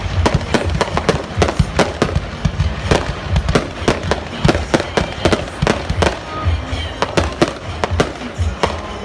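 Fireworks display going off in a rapid volley: sharp bangs and cracks, several a second, thinning out near the end.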